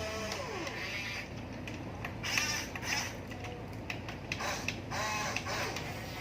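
Small electric motors and gearboxes of a Huina radio-controlled construction model whirring, with the pitch falling a couple of times as the motors slow, and light clicks and knocks in between.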